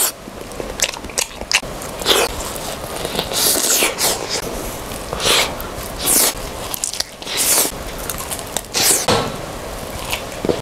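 A person biting into and chewing a broccoli floret: a run of sharp bites and chews at irregular intervals.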